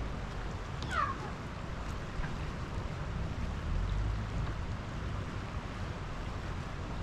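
A single short, falling animal cry about a second in, with a fainter second one just after, over a steady low rumble.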